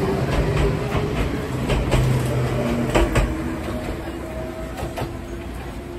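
Enoden electric train running, heard from on board: a steady running hum with the wheels knocking over rail joints several times, the sound easing off toward the end.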